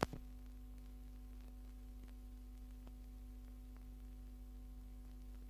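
A steady low hum with faint scattered clicks and one sharp click right at the start. This is the background noise of an old 1970s television film's soundtrack.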